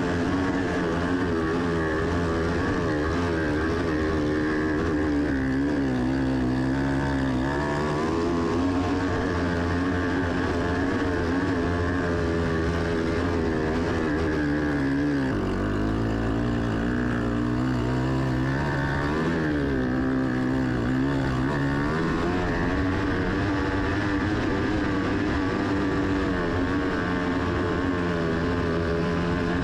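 Off-road vehicle engine running steadily under load, climbing a steep hill. Its note rises and falls several times, with a sudden change in the low engine note about halfway through.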